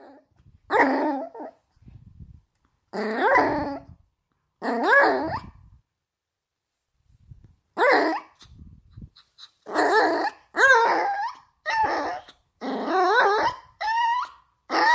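Dogs 'talking': a French bulldog makes three drawn-out, wavering vocal noises, each about a second long. Then a Pomeranian makes a quick run of shorter wavering yowls, about one a second.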